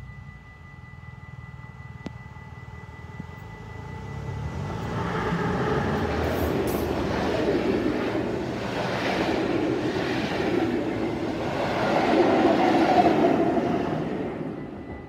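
Rheingold special passenger train passing close by, the wheel and rail noise of its coaches swelling from about four seconds in, loudest near the end, then dropping away sharply as the last coach goes by.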